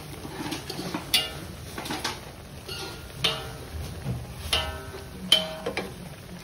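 Background music: plucked string notes with light percussion, a sharp note about once a second.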